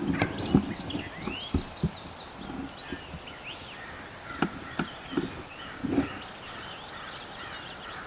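Several songbirds chirping and singing, with a cluster of low thumps and knocks in the first two seconds and a few sharp clicks around the middle.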